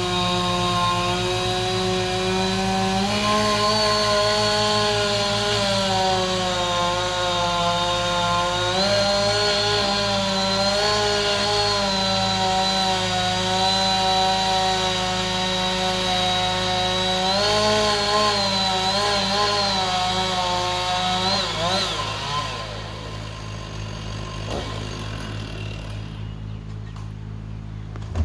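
Chainsaw running at high revs while cutting through dead wood, its pitch dipping and recovering as the cut loads it. About 22 seconds in the revs fall away and it goes quieter.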